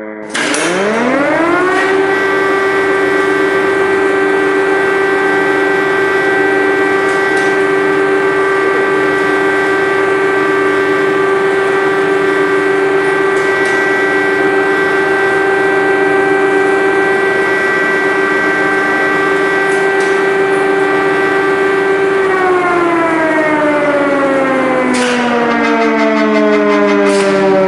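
Air-raid siren winding up to full pitch within about two seconds, holding one steady wail for about twenty seconds, then slowly winding down. A second siren tone overlaps near the end.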